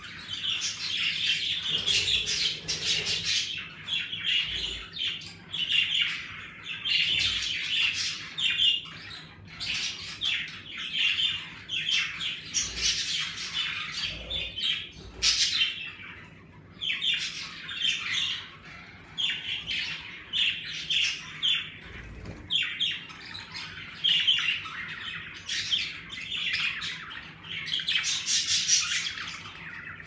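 Several pet budgerigars chattering and chirping without a break, a dense run of quick high calls.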